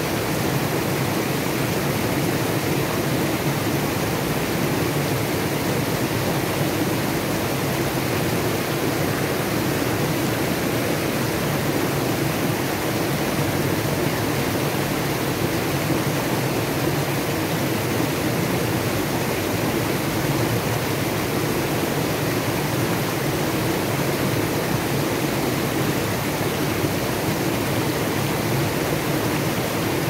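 Mountain creek rushing and splashing over boulders in a small cascade: a steady, unbroken rush of water.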